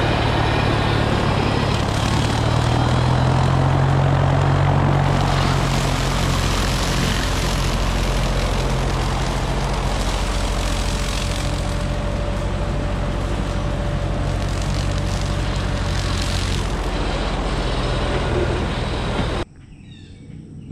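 Yanmar ViO55 mini excavator's diesel engine running at working speed while its hydraulic brush mower spins. The two make a loud, steady machine noise, with the engine's deep drone under a dense rushing sound, which cuts off abruptly near the end.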